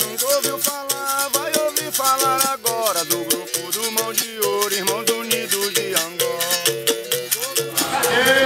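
Music with a shaker rattling on a steady beat over low held notes and a melody that slides between pitches. Near the end it gives way to the echoing noise of a hall with voices.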